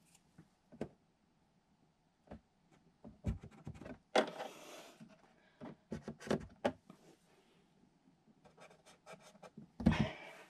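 Handling noises: scattered clicks and knocks of a plastic bag dispenser shifted against a wooden cabinet wall, with a scratchy marker marking screw holes. A scraping stretch about four seconds in is the loudest part, and there are clusters of quick clicks near the middle and near the end.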